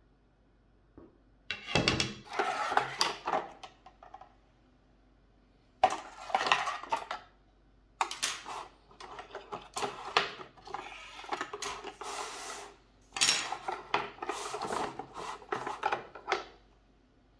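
Fly rod sections being slid out of a cardboard box and set down on a wooden table: scraping, light clicks and clatter. The handling comes in a burst about two seconds in, another around six seconds, then runs almost without a break until near the end.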